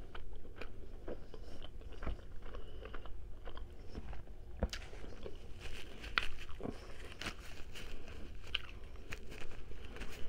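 A person chewing rotisserie chicken close to the microphone, with many irregular wet mouth clicks and crackles.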